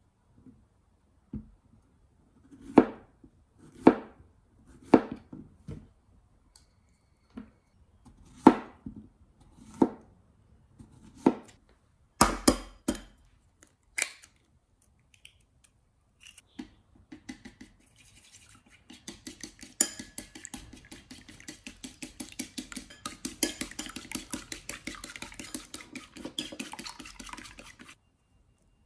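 A kitchen knife slicing a zucchini into rounds on a plastic cutting board, about a dozen separate chops roughly a second apart. Next an egg is cracked against a ceramic bowl, with a few sharp knocks. Then the egg is beaten fast in the bowl for about ten seconds: a quick, even clicking of a utensil against the ceramic.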